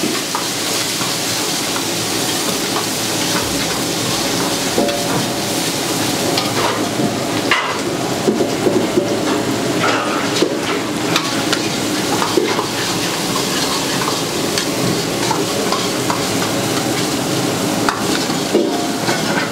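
Chopped onions sizzling steadily in hot oil in an iron kadai, stirred by a steel ladle that scrapes and clinks against the pan now and then.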